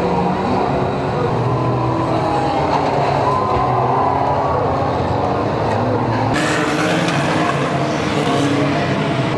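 Engines of several pre-1970 banger racing cars revving and running together as they shunt and push against each other on a dirt track. A brighter hiss joins suddenly about six seconds in.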